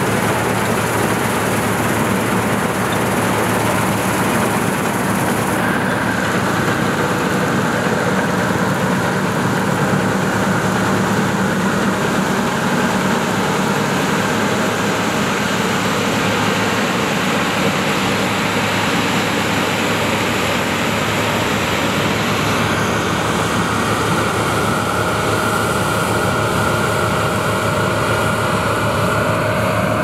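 Palesse GS812 combine harvester running steadily while cutting and threshing wheat: a continuous engine-and-machinery noise with a faint steady whine over it.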